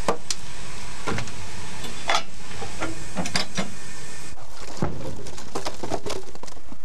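Irregular knocks and clanks as split logs are loaded into the firebox of a wood-fired Climax geared steam locomotive, over a steady low rumble.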